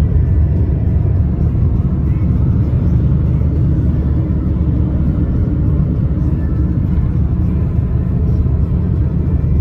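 Steady low rumble of a car driving, engine and tyre noise on a snowy road heard from inside the cabin.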